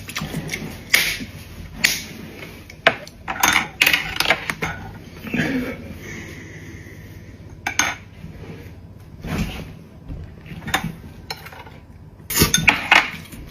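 Tableware clinking during a meal: utensils knocking against bowls and plates in irregular sharp clinks, several at a time near the start and again near the end.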